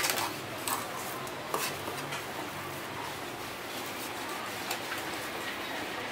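A knife blade knocking and scraping on a wooden chopping block as a fish is cut. There are a few sharp knocks, the loudest at the very start and others at irregular moments, over a steady background noise.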